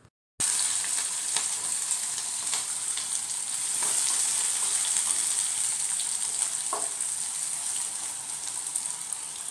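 Dried red chillies, shallots and curry leaves sizzling in hot coconut oil in an iron kadai as they are stirred: a steady hiss with light clicks and scrapes, starting suddenly a moment in.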